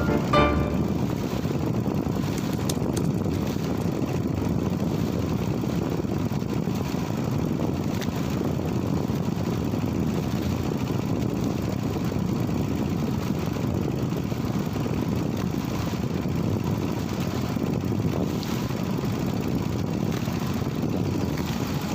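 Small fishing boat's engine running steadily while trolling, with a constant low hum.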